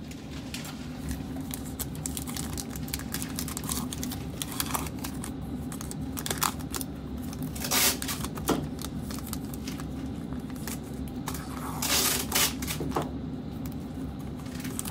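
Foil trading-card pack being crinkled and torn open by hand, with irregular crackles and two louder rips about halfway through and near the end. A steady low hum sits underneath.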